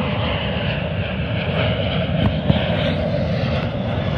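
Jet2 Boeing 737-800's CFM56 turbofan engines at take-off power as the airliner climbs out overhead: a steady rumble with a hiss above it. There is a short knock about two and a half seconds in.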